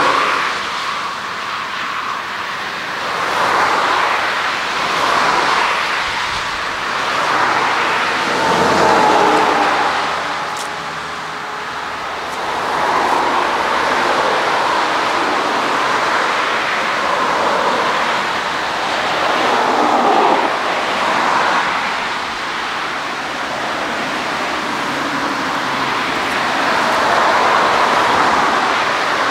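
Twin jet engines of an Airbus A320-family airliner at takeoff thrust on its takeoff roll: a steady roar that swells and fades in waves as the aircraft accelerates toward and past the listener.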